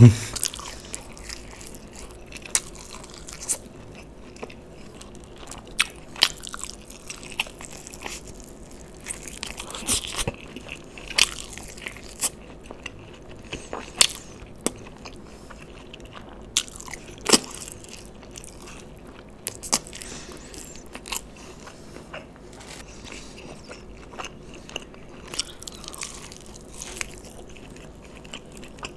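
Close-up biting and chewing of sauce-coated fried chicken lollipops: irregular crisp crunches and chewing, some crunches sharper and louder than the rest, with no talking.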